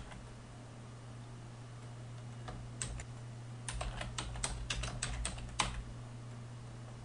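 Typing on a computer keyboard: a quick run of about a dozen keystrokes beginning about two and a half seconds in and stopping shortly before the end, over a low steady hum.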